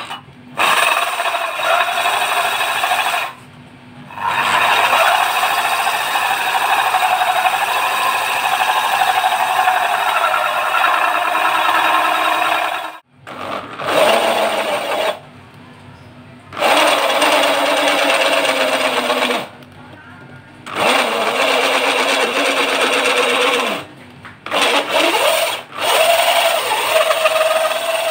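Electric drill turning a hole saw through a 30 mm wooden board, running in about six bursts of a few seconds with short stops between. The motor's whine dips slightly in pitch and recovers within the longer runs.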